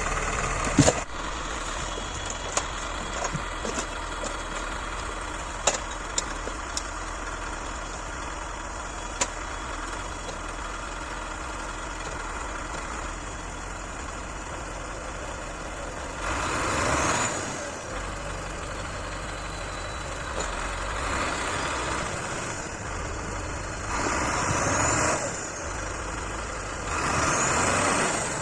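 Belarus MTZ 1221 tractor's diesel engine running under load, with a few sharp knocks early on. In the second half it revs up and back down four times, a few seconds apart.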